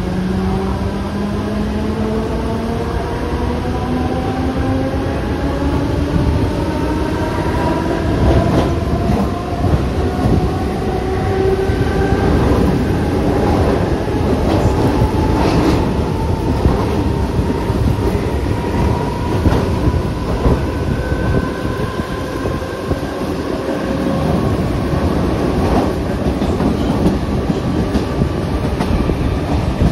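Mumbai suburban electric local train running, heard from inside a coach. The motor whine climbs steadily in pitch over the first dozen seconds as the train gathers speed, then holds, over a constant rumble of wheels on rail with occasional clacks at rail joints.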